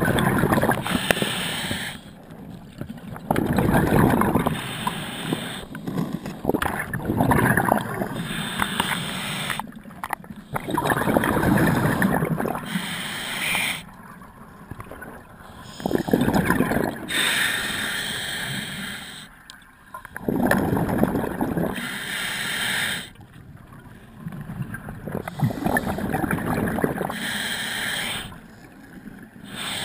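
Scuba diver breathing through a regulator underwater: loud rushes of exhaled bubbles every four seconds or so, with quieter inhalations in between.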